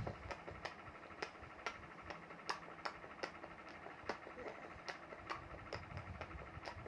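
A child making clicking sounds with the mouth, faint sharp clicks about two a second, slightly uneven in spacing.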